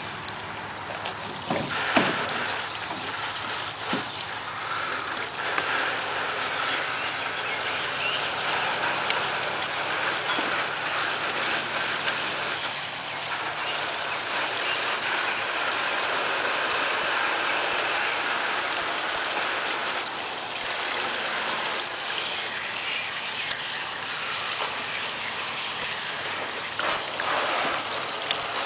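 Garden-hose spray nozzle running, water spraying onto the floor of a plastic kiddie pool in a steady hiss. Scattered clicks and splashes come from raccoons pawing at the nozzle and the water.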